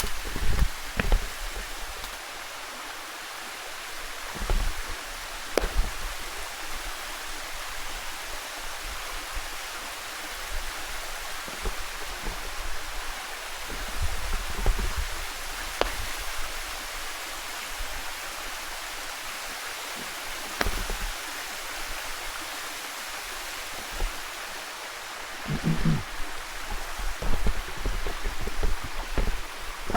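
Steady rush of water tumbling down a rocky mountain stream, with irregular low thumps, heaviest near the end.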